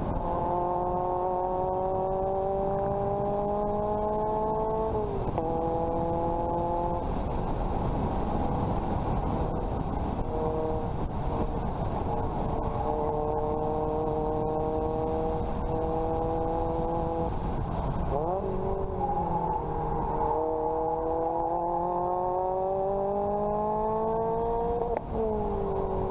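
2007 Lotus Elise's Toyota 1ZZ 1.8-litre four-cylinder engine accelerating on track, heard from a bumper-mounted camera over heavy wind and road rumble. The pitch climbs, falls at an upshift about five seconds in, holds fairly steady for a long stretch, drops and wavers around eighteen seconds, climbs again, and falls at another shift near the end.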